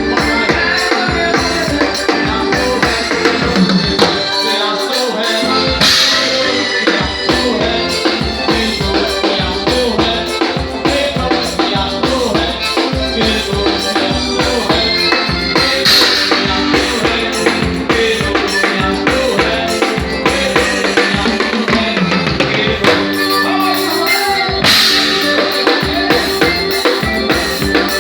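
A live band playing upbeat music, with a drum kit keeping a steady beat on bass drum and snare. Cymbal crashes ring out a few times.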